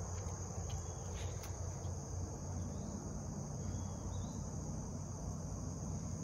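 Steady, high-pitched drone of an insect chorus over a low rumble, with a couple of faint short chirps.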